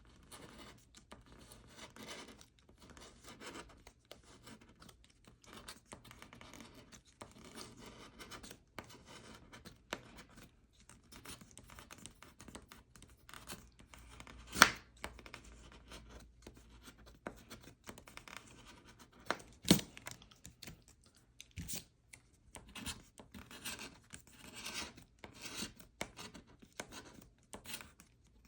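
Scratch-off lottery ticket being scratched off in many short, irregular rasping strokes. Two sharper ticks stand out, one about halfway through and one about two-thirds of the way in.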